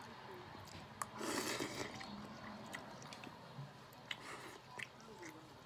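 A person eating noodle soup: one loud slurp about a second in, then chewing and a few small sharp clicks.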